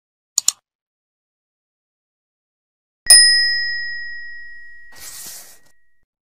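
Subscribe-button sound effects: a quick double mouse click, then about three seconds later a single bright bell ding that rings on and fades slowly. A short whoosh comes as the ring dies away.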